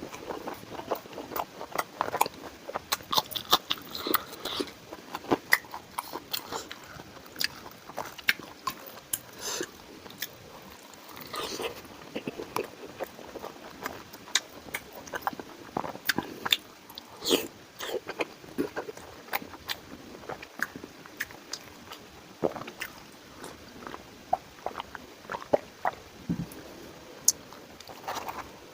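Close-miked eating sounds from a man biting and chewing food, with many irregular clicks and crunches.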